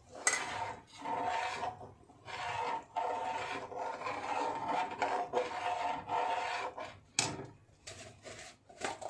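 A steel ladle stirring thick ground-mung nimona in a stainless steel kadhai, scraping along the pan bottom in a run of rasping strokes. There are sharp metal clinks near the start and about seven seconds in.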